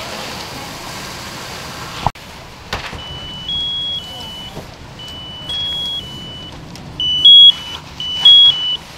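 Electronic alarm sounding a repeating low-high-low two-pitch tone, starting about three seconds in and turning faster and louder about seven seconds in. A sharp click comes about two seconds in.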